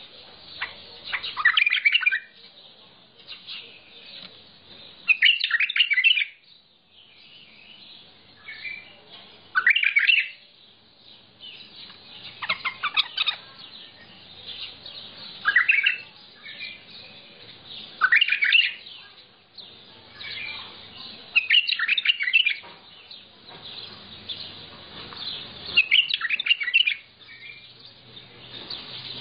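A bulbul singing: short, loud song phrases about every three seconds, with quieter twittering in between.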